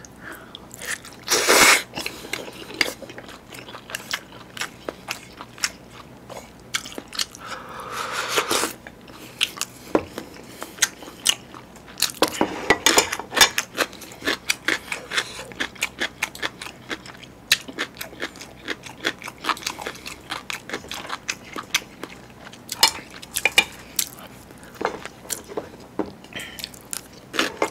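Close-miked eating of chewy spicy instant noodles: wet chewing with many sharp mouth clicks, and a few longer slurps of noodles, one about a second and a half in, another around 8 s and another around 13 s.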